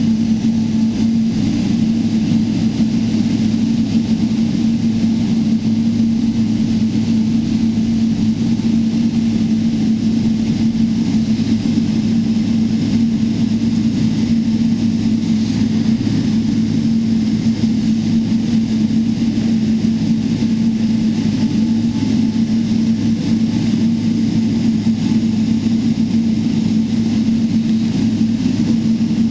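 Steady cabin drone of a Boeing 777-300ER's GE90 turbofan engines and rushing air, heard from inside the passenger cabin during takeoff and climb, with a constant low hum and no change in level.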